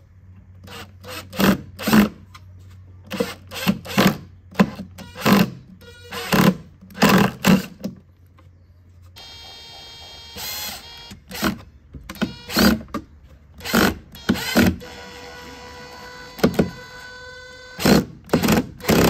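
Background music: a beat of sharp hits, joined about nine seconds in by held, steady chords.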